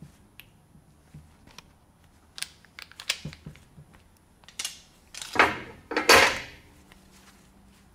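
Imperial hand tube bender worked on a metal tube: light clicks and knocks as the tube and tool are handled, then a few loud scraping strokes about five and six seconds in as the handle is pulled through the bend. Started without a hand pre-bend, the bender puts a kink and dent in the tube.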